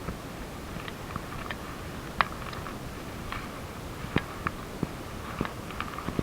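Footsteps on a trail crunching dry leaves and twigs: scattered, irregular snaps and crackles over a steady hiss.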